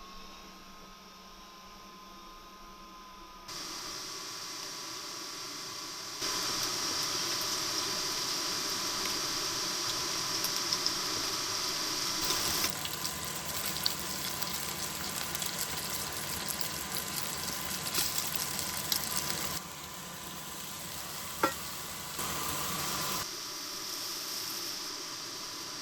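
A sizzling hiss, like food frying in a pan, that changes abruptly in loudness several times, with one sharp click about two-thirds of the way through.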